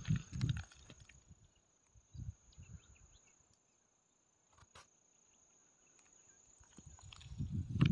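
An insect trilling on one steady high note throughout. Low muffled bumps on the microphone come about half a second in, again around two to three seconds in, and build up near the end.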